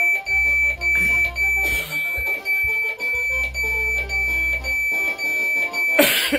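Music playing loudly from an Alexa smart speaker set to maximum volume, with a high, steady beeping tone running through it. A short, loud burst of noise comes near the end.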